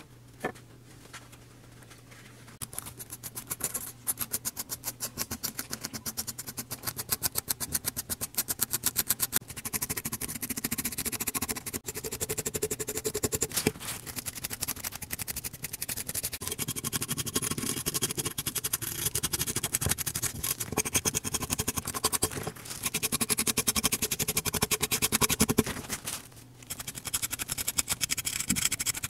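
Stiff brush scrubbing flaking paint and corrosion off a small metal model-car body part: rapid, regular scratchy strokes that start about two seconds in, with a brief pause near the end.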